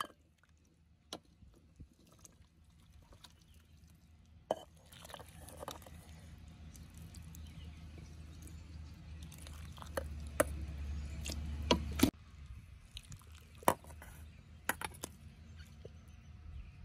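Steel ladle scooping cow-leg soup and clinking against the pots as broth and pieces are ladled into a clay pot: scattered light clinks and knocks with small splashes, over a low rumble that builds up and stops abruptly about twelve seconds in.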